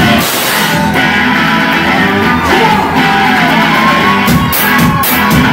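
Live rock band playing loud: an electric guitar plays bent, gliding notes over drums, with cymbal crashes coming thicker near the end.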